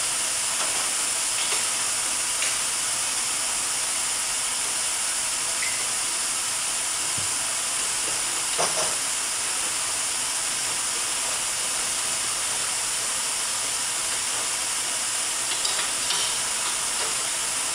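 Steady high hiss of steam in a furniture steam-bending shop, with a few faint knocks as the metal bending strap and clamps are worked around the bending form.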